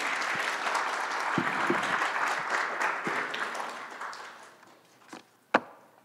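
Audience applauding, then dying away about four seconds in. Two short sharp knocks near the end, the second loud.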